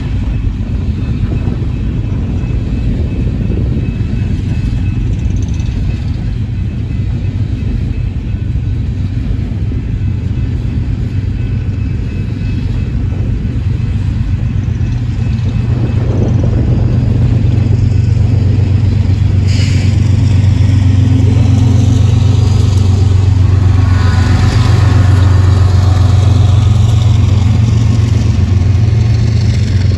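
Empty coal hopper cars rumbling and clattering past on the rails, then the train's rear distributed-power diesel locomotives passing with a steady engine drone that grows louder over the second half. There is a single sharp clank a little past the middle.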